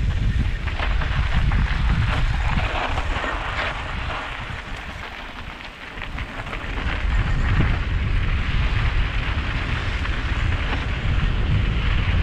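Mountain bike descending a rocky dirt trail: wind buffeting the helmet camera's microphone as a heavy rumble, with scattered clicks and rattles from the tyres and bike over the rough ground. The noise eases for a couple of seconds around the middle, then builds back up.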